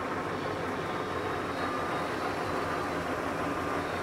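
Supermax G-2238 engine lathe running under power, a steady mechanical hum of the motor and geared headstock with faint constant whine tones.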